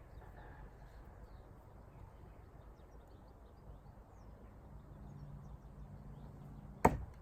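A thrown stiletto throwing knife hits the target once near the end with a single sharp impact and a brief ring. Faint birds chirp in the background.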